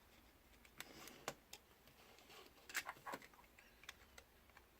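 Near silence with a few faint, sharp clicks and light taps of small parts being handled, about a second in and again around three seconds in: the small plastic panel and screws of a drone camera gimbal being fitted by hand.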